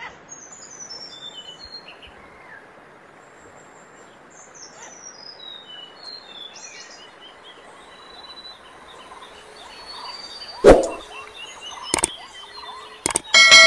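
Birds chirping and trilling over a steady hiss, a recorded nature ambience. About ten seconds in comes a single loud hit, followed by several sharp clicks near the end.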